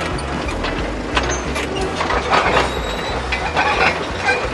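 Construction machinery working: a steady low engine rumble under many quick clanks and rattles, as an excavator clears rubble into a dump truck.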